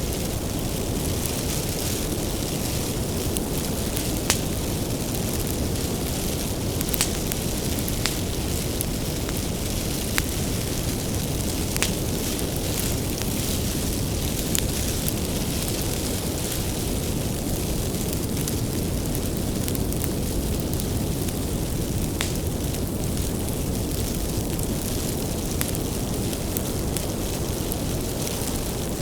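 Bonfire of firewood burning with a steady low rush of flames, punctuated by sharp crackles and pops every few seconds.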